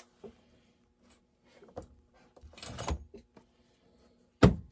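Handling sounds of a cordless drill/driver and chainsaw parts on a workbench: scattered clicks and clunks, a short rattle a little past the middle, and one sharp knock near the end, the loudest sound.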